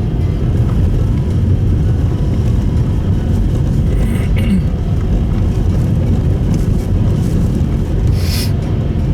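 Steady low rumble of a Subaru Impreza Sport's engine and tyres, heard inside the cabin while driving. Two short hissing sounds come about four and eight seconds in.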